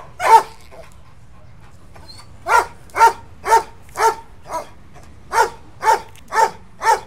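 A large dog barking during ball play in short, even barks. There is one bark, then a pause of about two seconds, then a run of nine barks at about two a second, the fifth one weaker.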